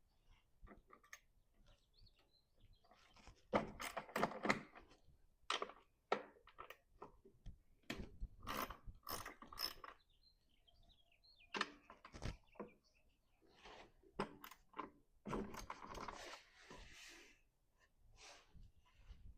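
Scattered clicks, knocks and clinks of hand tools and small parts being handled as a lawn mower's carburetor is taken apart, with short bursts of rustling.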